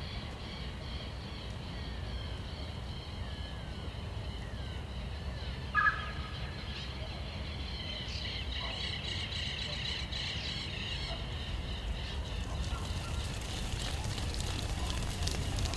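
Outdoor ambience of birds calling and chirping over a steady low rumble. One short, louder call comes about six seconds in, and the birdsong grows busier in the second half.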